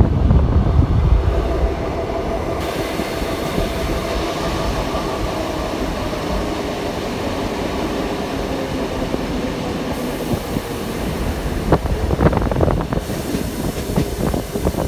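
Steady running noise of an ET2 electric multiple unit at speed, heard from inside the carriage, with a faint steady whine in the middle. Wind buffets the microphone briefly at the start, and a run of wheel clicks over the track comes near the end.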